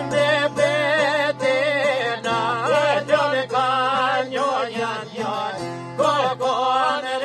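Men singing an Albanian folk song in a wavering, ornamented melody, accompanied by plucked long-necked lutes (çifteli and sharki) over a steady low drone.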